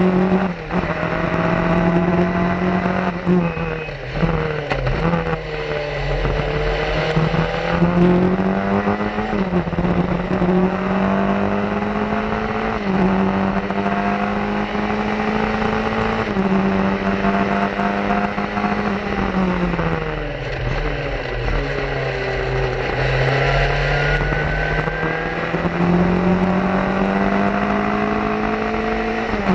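Onboard sound of a 1990 Swift SE3-B open-wheel race car's engine at full throttle. The note climbs steadily under acceleration and drops suddenly at each gear change, several times, with wind buffeting over it.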